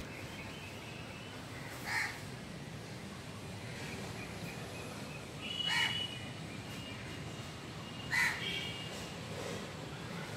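A bird calling outdoors: three short calls about three seconds apart, with fainter thin chirps near the second and third, over steady background noise.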